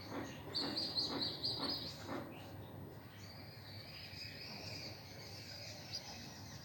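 Pigeon squabs peeping: a quick broken run of high, thin squeaks for about a second and a half near the start, then a long, faint drawn-out squeak. Soft low pulses sound about twice a second during the first two seconds.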